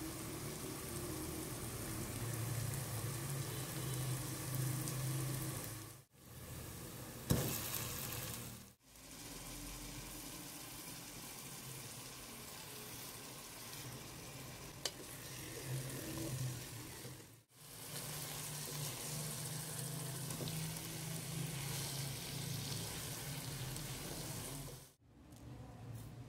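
Chopped green masala of coriander, mint, garlic and ginger frying in oil in a pot, then raw chicken pieces frying in it, with a steady sizzle. The sizzle breaks off briefly several times, and there is a single sharp click about seven seconds in.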